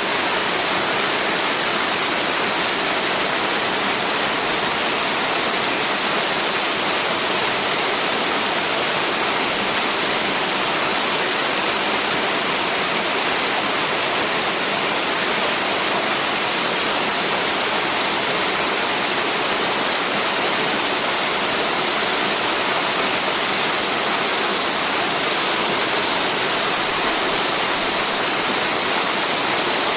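Multi-tiered mountain cascade waterfall rushing with a steady, even hiss that does not change.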